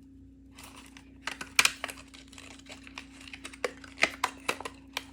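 Irregular sharp clicks and taps of hands working rolls of washi tape out of their plastic packaging, starting about a second in, over a faint steady hum.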